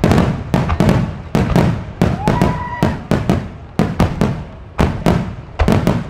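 Starmine fireworks barrage: aerial shells bursting in quick succession, about three sharp bangs a second, each with a rolling echo. A short rising whistle sounds about two seconds in.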